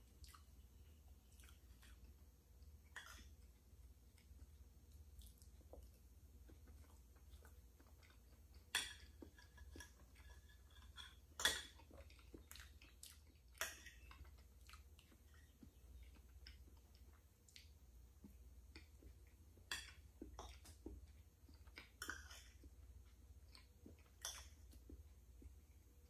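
Close-miked chewing and mouth sounds of a person eating soft chocolate cake, with scattered short sharp clicks, the loudest about 9 and 11½ seconds in.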